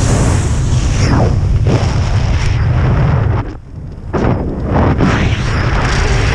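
Wind buffeting a helmet camera's microphone while flying under an open parachute canopy: a loud, rough rumble that gusts and eases, dropping away briefly about three and a half seconds in before coming back.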